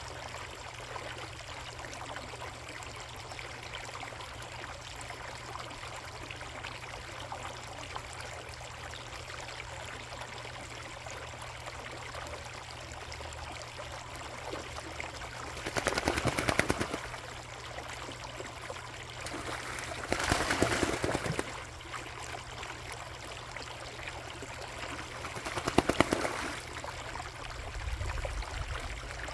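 Pond water trickling steadily. In the second half come three louder bursts of about a second each, made of rapid pulses like fast splashing.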